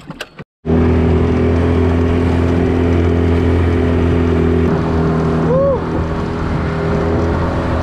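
Small boat's motor running steadily at speed, with water and wind rushing past the open hull. A short rising-and-falling chirp sounds about five and a half seconds in.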